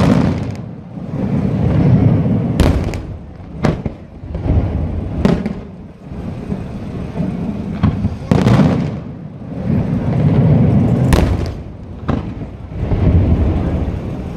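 Aerial firework shells bursting: about six sharp bangs a few seconds apart, with long low rumbles swelling between them.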